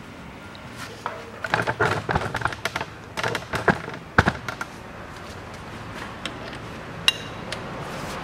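Steel hand tools clinking and knocking against metal under the car as the lower engine mount bolt is set up to be undone: a flurry of sharp clicks and knocks over a few seconds, then a single ringing metallic clink near the end.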